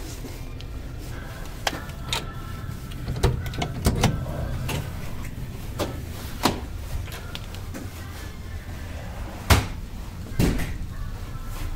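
Ferry cabin doors and their latches being worked: a string of clicks and knocks, the loudest about three-quarters of the way through, over a steady low hum.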